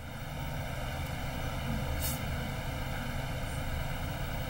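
Steady low background rumble of room noise, with one faint click about two seconds in.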